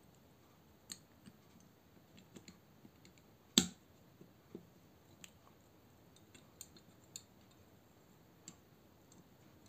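Scattered light clicks and taps of a folding knife's handle scale and metal frame being handled and pulled apart, with one sharp, much louder click about three and a half seconds in.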